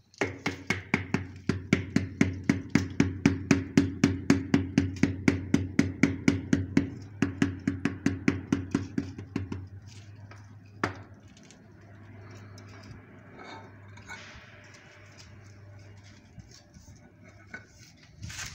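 A floor tile being tapped down into its mortar bed with a hand tool: quick, even knocks, about five a second, each with a hollow thud. The tapping stops about nine and a half seconds in. One louder single knock follows a second later, then softer scattered taps over a faint steady low hum.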